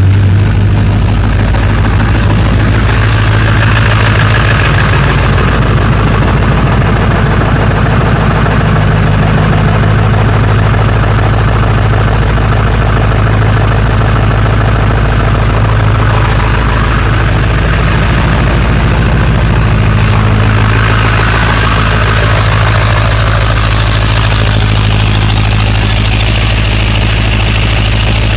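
Car engine idling steadily just after a cold start, a constant low hum with no revving.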